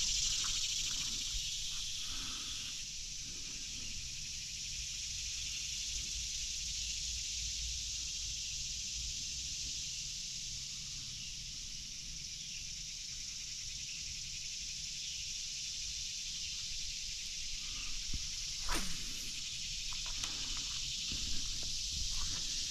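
Steady high-pitched chorus of insects with a low rumble of wind underneath, and one brief falling swish about three-quarters of the way through.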